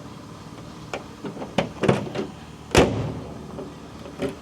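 Door latch and handle of a 1947-53 Chevrolet pickup being worked: several sharp clicks and knocks, the loudest a door clunk about halfway through. The lock has been turned but the door does not lock, a fault suspected to lie in the latch.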